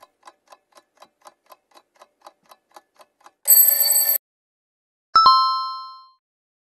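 Countdown-timer sound effect: a clock ticking about four times a second for roughly three seconds, then a short alarm-clock bell ring. About a second later comes a single bright chime that rings out and fades, the answer-reveal signal.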